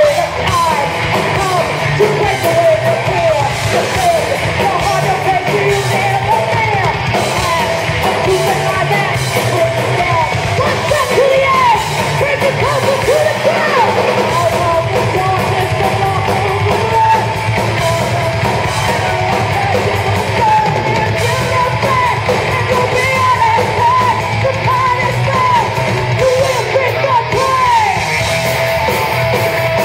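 Live heavy metal band playing loudly, with a vocalist singing and shouting over distorted guitars and drums, and the echo of a large hall.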